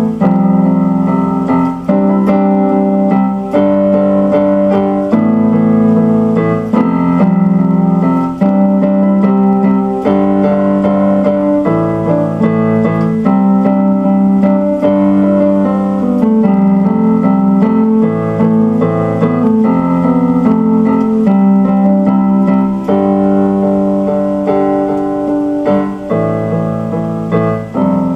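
Instrumental electric piano music played on a keyboard, sustained chords under a slow melody.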